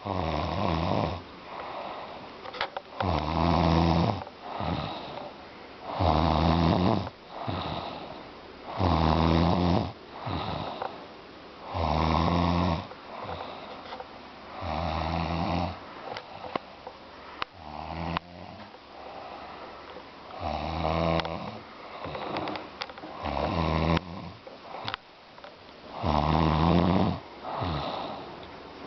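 A woman snoring in a drunken, passed-out sleep: a loud snore about every three seconds, each lasting about a second, with quieter breaths between.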